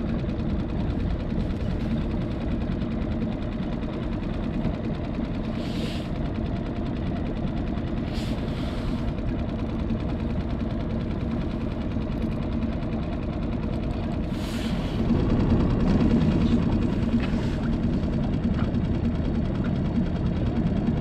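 A steady low motor hum and rumble that grows a little louder in the later part, with a few brief scrapes or clicks.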